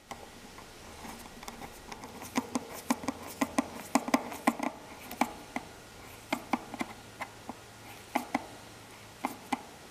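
Screwdriver tightening a small worm-drive hose clamp on a silicone coolant hose: a run of sharp, irregular clicks as the screw turns, thickest a few seconds in and fewer towards the end.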